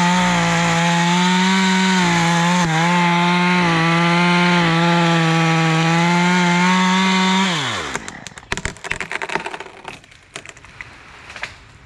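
Top-handle chainsaw running at full speed as it cuts through a maple limb. About seven and a half seconds in it is let off and its pitch falls away to a stop. Scattered clicks and knocks follow.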